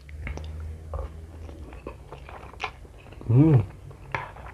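Close mouth sounds of a man eating spicy fried instant noodles: small wet chewing clicks and smacks. About three and a half seconds in comes a short hummed 'mmm' that rises and falls in pitch, the loudest sound here.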